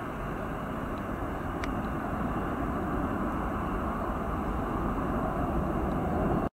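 Jet engines of a Spring Airlines Airbus A320-family airliner running at takeoff power as it climbs away, a steady roar that grows a little louder and then cuts off suddenly at the end.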